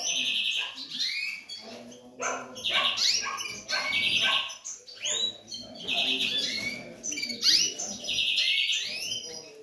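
Canary song: rapid buzzy trills repeated about every two seconds, mixed with quick rising and falling whistled notes.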